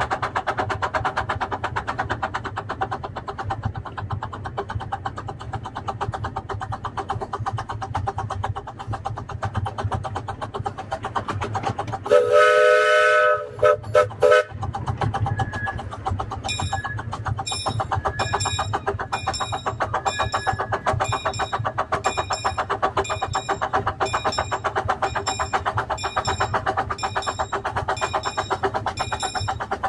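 Miniature live steam locomotive running with a steady rhythmic beat. About twelve seconds in, its steam whistle blows one long chord blast, then two short toots. From about sixteen seconds on, a light ringing repeats at an even beat, a little more than once a second.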